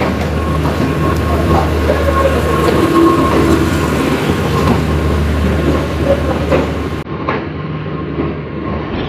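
Pakistan Railways passenger coaches rolling past at close range, with the wheels clacking over rail joints over a steady low hum and rumble.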